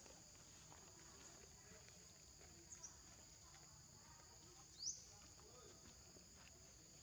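Faint, steady high-pitched insect drone in two bands, with a short rising chirp about five seconds in.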